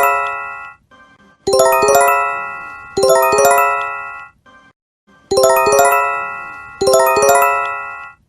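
Japanese emergency alert chime (J-Alert earthquake/tsunami warning tone): a quick cluster of several bell-like notes struck in fast succession, ringing and fading over about a second. The cluster repeats in pairs with a brief pause between each pair, four times in all.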